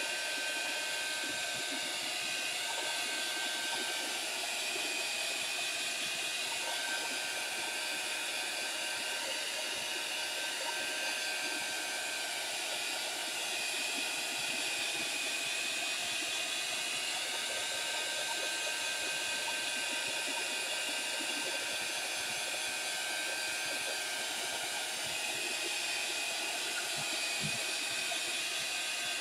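Small handheld dryer running steadily and blowing hot air over wet watercolour ink on paper to dry it: an even rushing hiss with a thin high whine from the motor.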